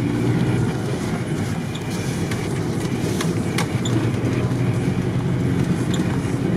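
Off-road vehicle driving over a snowy, rutted dirt track, heard from inside the cabin: a steady engine drone with scattered knocks and rattles as it jolts over the ruts.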